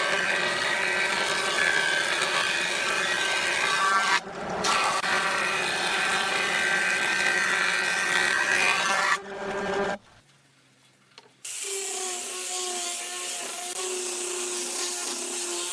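A power tool working wood: a steady motor whine over rough noise, with a brief break about four seconds in, stopping about nine seconds in. After a short silence a smaller motor starts and runs with a steady, even hum.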